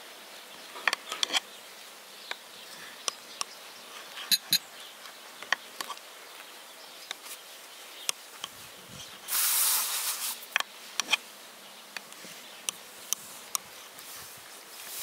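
Scattered sharp clicks and light ticks of a table knife against a glass baking dish as it scores through a soft cream-topped dessert. About nine and a half seconds in there is a brief rushing hiss lasting about a second, the loudest sound.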